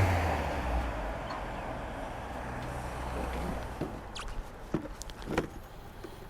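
A motor vehicle passes by, its engine note dropping and fading over the first second or so into a low background hum. From about four seconds in come several light knocks and clicks.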